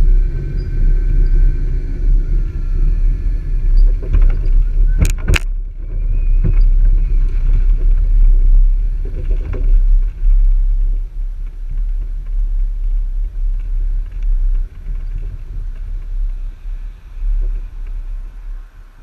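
A jet ski on its trailer being towed, heard from on the jet ski: a steady low rumble of the trailer rolling over tarmac and cobbles. Two sharp clicks about five seconds in.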